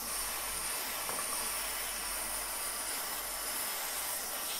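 Handheld jeweller's torch flame hissing steadily as it heats a piece of copper sheet to anneal it.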